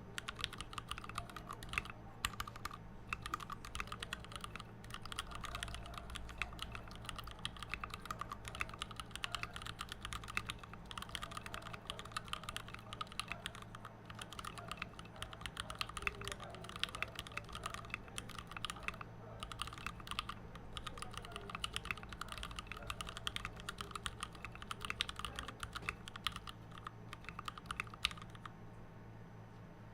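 Continuous fast typing on a custom 60% mechanical keyboard with linear Gateron Clear switches in milky housings, in an acrylic case with PBT keycaps and lubed Cherry stabilizers. The keystrokes stop about a second before the end.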